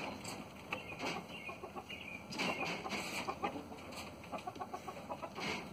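Rooster clucking quietly now and then, with short ticks and scratches from it pecking and scratching at the dirt.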